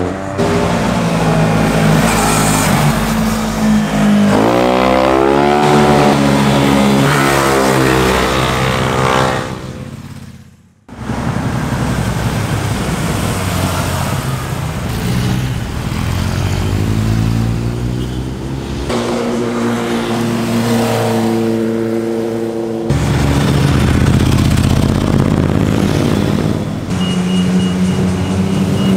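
Motorcycle engines revving and passing through corners, one bike after another, their pitch rising as they accelerate. The sound dips out briefly about ten seconds in, then more bikes are heard.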